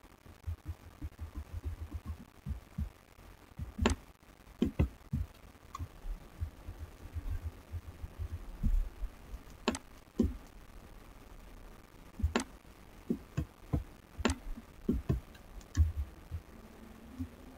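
Computer-desk handling noise: irregular soft low knocks with a handful of sharp clicks, like mouse clicks, over a faint steady hum.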